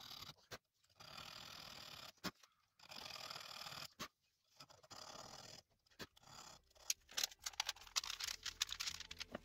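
A diamond file drawn by hand across the spine of an N690 stainless steel knife blade, cutting filework notches: three raspy strokes about a second long each, with pauses between. Near the end, crinkling ticks of aluminium foil being smoothed flat by hand.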